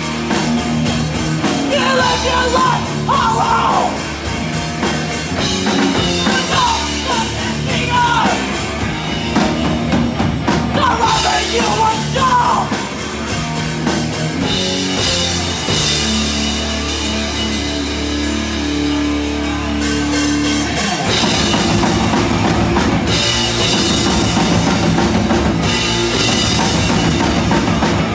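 Live punk band playing: shouted vocals over bass guitar, electric guitar and drum kit. The vocals drop out about halfway, a low bass note is held for several seconds, then the full band comes back in louder and denser.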